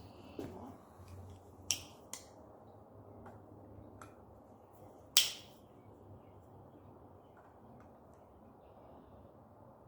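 Scattered sharp clicks and metallic taps from hand tools and bicycle parts being handled during repair work, over a low steady hum. There is a louder clack about five seconds in, and smaller ones near the start and around two seconds in.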